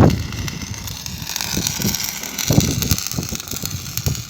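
Stick (arc) welding with an E6013 electrode: the arc hissing and crackling steadily. A loud knock comes right at the start.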